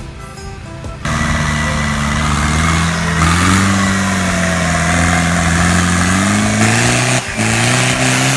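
An off-road vehicle's engine running under load. It comes in suddenly about a second in, and its pitch rises and falls as the revs change, with a short drop in revs near the end. Background music plays for the first second.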